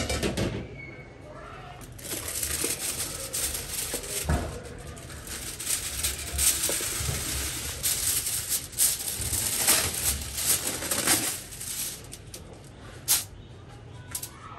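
Sheet of aluminium foil being spread and smoothed flat by hand, crinkling and rustling for about ten seconds, then one light tap near the end.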